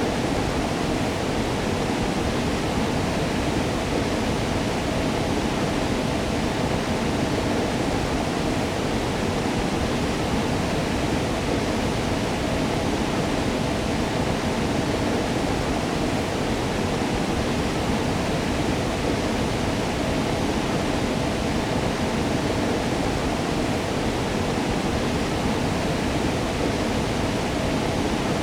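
Waterfall: a steady, unbroken rush of falling water, deep rather than hissy.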